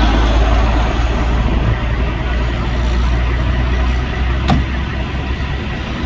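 Kenworth T659 heavy rotator tow truck running, a deep diesel rumble that eases a little as it goes, with a short sharp click about four and a half seconds in.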